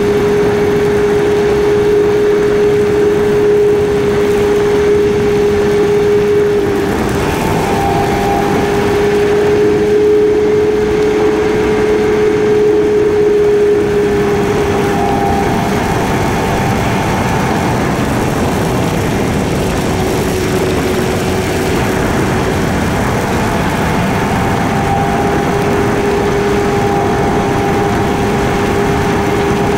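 KTM Duke 250 single-cylinder motorcycle engine running at a steady cruise. Its note holds level and shifts slightly a few times, with rushing wind noise throughout.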